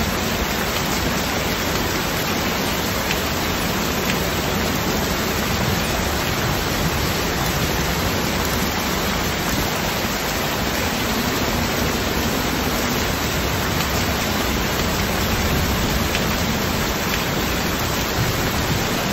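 Heavy rain falling in a steady downpour, a dense, even hiss with no breaks.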